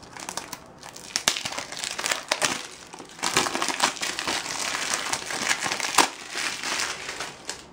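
Clear plastic shrink-wrap being peeled off a Blu-ray case and crumpled in the hand: dense crinkling and crackling, louder and busier from about three seconds in.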